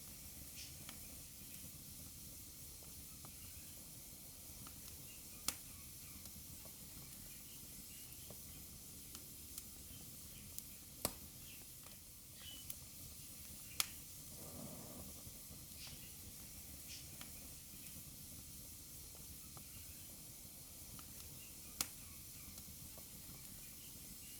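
Wood fire burning in a fireplace: a soft steady hiss with scattered crackles, and a few sharp pops standing out every several seconds.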